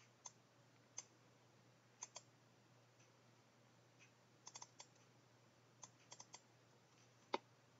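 Computer mouse clicking about a dozen times, single clicks and quick double clicks, with the loudest click near the end, over near-silent room tone.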